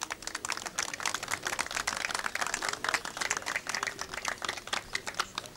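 Applause from a small crowd: many separate hand claps that die away near the end.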